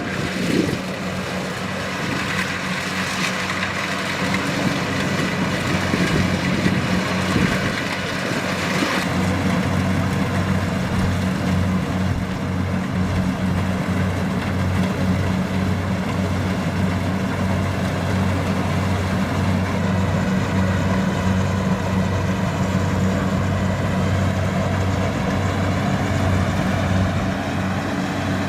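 Kubota DC-70 Plus rice combine harvester's diesel engine running steadily with a constant low drone; the drone grows stronger about nine seconds in.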